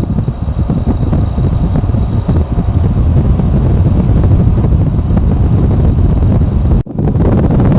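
Loud rushing air buffeting the microphone: a steady, gusty rumble, heaviest in the low end, that dips for a moment about seven seconds in.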